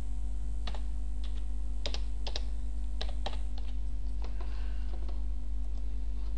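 Computer keyboard keystrokes, a dozen or so sharp clicks at an uneven pace, over a steady low electrical hum.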